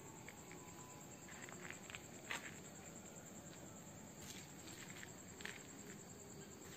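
Faint night ambience: a steady high-pitched drone of crickets or similar insects, with a scattering of soft, irregular ticks.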